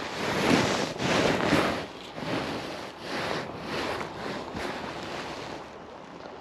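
Rough rushing and rubbing noise on the camera's microphone, coming in a run of surges that are loudest in the first two seconds and die down about five and a half seconds in.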